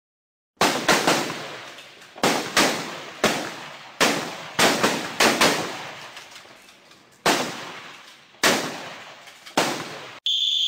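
Recorded rifle shots, about a dozen irregularly spaced single shots, each with a short echoing tail, played as a range's background gunfire. Near the end a steady, high whistle blast starts: the signal that the firing series is over.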